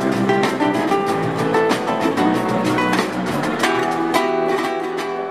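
Live rumba flamenco music: a nylon-string flamenco guitar played in quick plucked and strummed figures over electric bass guitar. It begins to fade out near the end.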